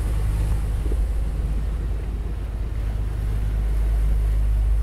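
Steady low engine rumble mixed with wind buffeting the microphone, with no single event standing out.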